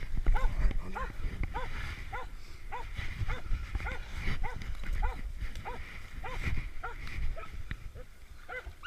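A hog dog barking over and over at a steady pace, about two short barks a second, the baying of a dog on a hog, over a low rumble.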